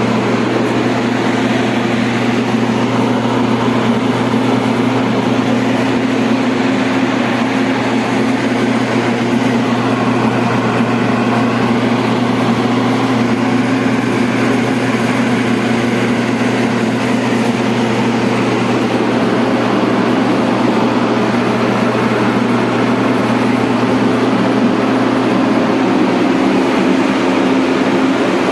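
A large machine running steadily: a constant low hum over a loud rushing noise, with no change in speed.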